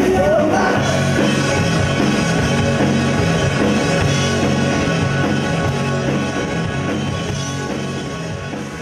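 Live rock band, with electric guitars, bass guitar and drum kit, playing the instrumental close of a pop-rock song after a last sung note at the start. The music fades away steadily toward the end.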